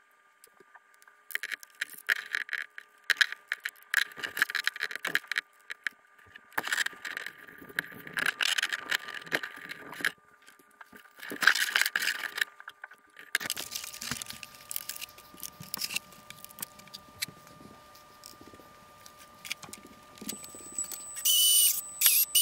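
Hands working on the wiring and parts inside a model jet's fuselage: irregular rustling, scraping and clicking in bursts, then quieter scattered clicks. A few louder hissy bursts come near the end.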